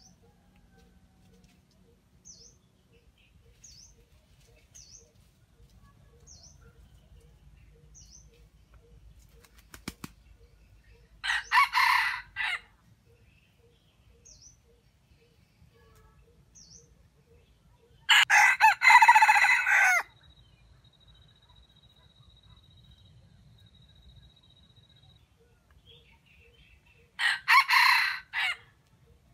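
Junglefowl rooster crowing three times, several seconds apart, the middle crow the longest and loudest. Faint high chirps of a small bird come in between.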